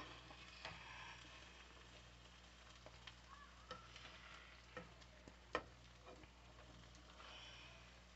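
Near silence: quiet room tone with a low steady hum and a few scattered faint clicks, the clearest about five and a half seconds in.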